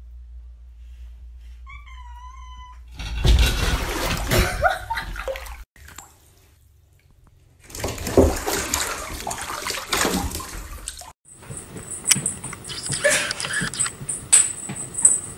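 A cat meows once, then water splashes loudly in a bathtub in two stretches as cats scramble in and around the water. Near the end comes a steady high ringing with scattered clicks.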